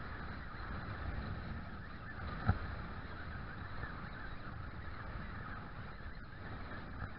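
Steady noise of wind and sea at the shoreline, a low rumble under a constant higher hiss, with a single sharp knock about two and a half seconds in.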